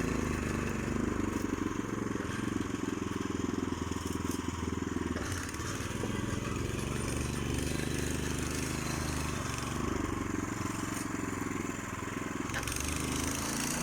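Small motorcycle engine running steadily while the machine sits stuck in mud.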